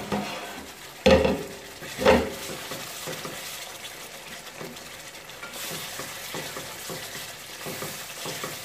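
Chicken jalfrezi simmering and sizzling in a pot while a spatula stirs and scrapes through the thick gravy. Two loud clanks, about a second apart, come near the start.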